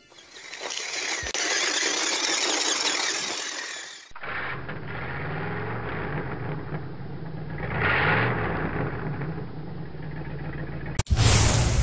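Intro sound effects: a loud rushing noise, then a motor vehicle engine running that swells once about eight seconds in, then a sudden loud whoosh near the end.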